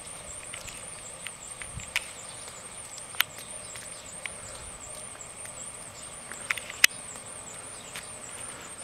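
A heifer's hooves and a man's boots walking on pavement: a few scattered sharp clicks, the loudest about three and about seven seconds in, over a steady high-pitched warbling whine.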